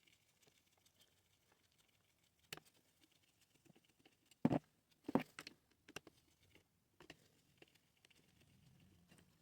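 Faint scattered clicks and taps of a screwdriver and small parts being handled while screws are taken out of a jigsaw's plastic back housing, with a few sharper knocks about halfway through.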